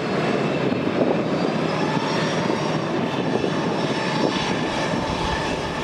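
Airbus A350-900 jet engines at takeoff power: a steady jet roar with a faint high whine.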